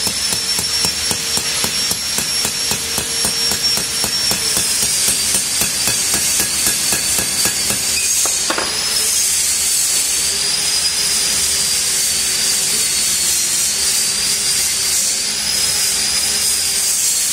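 Small hammer tapping on the metal pivot of a car wiper arm held against a steel block, many quick light taps through the first half and one harder knock about halfway through. A steady, wavering high-pitched whine runs underneath.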